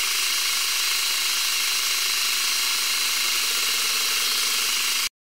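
Manual metal lathe cutting steel: a steady, high-pitched cutting hiss that stops abruptly about five seconds in.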